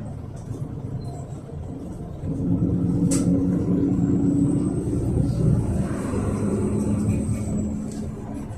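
Yutong ZK6116HG city bus running, heard from inside the passenger cabin: a low rumble from its Yuchai natural-gas engine and drivetrain. It gets louder about two seconds in, with a single sharp click about a second later.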